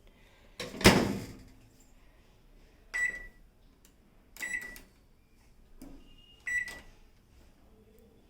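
Oven door shut with a thud, then the keypad clicked and beeping three times as the heating time is set.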